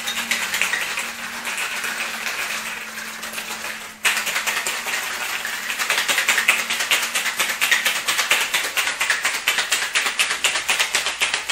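Ice cubes rattling hard and fast inside a cocktail shaker being shaken vigorously, with a brief break about four seconds in. The shaker holds two shots of coffee liqueur and vanilla spiced rum over ice.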